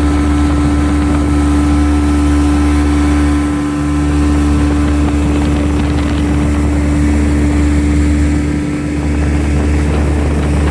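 The 40 HP Evinrude two-stroke outboard on a 1963 Glastron runabout, running steadily with a constant drone and a held tone, easing off slightly twice.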